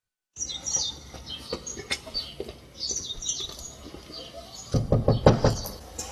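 Small birds chirping over a steady outdoor background, then a quick run of knocks on a glazed wooden door near the end.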